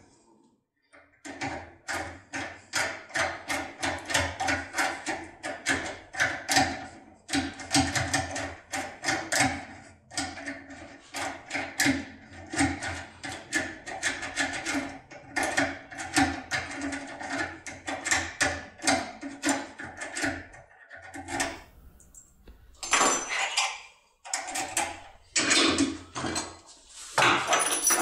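Steady run of metallic clicks, about three a second, from a tin foil impression pick being worked in a CISA Asix lock cylinder clamped in a vise. Near the end come a few louder, irregular clattering knocks.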